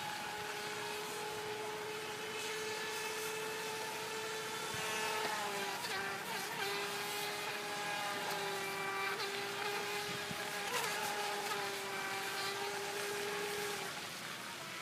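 Atomik Barbwire RC boat's electric motor and propeller running at speed with a steady high-pitched whine. The pitch drops and wavers about five seconds in, with a short blip near eleven seconds, and the whine stops shortly before the end.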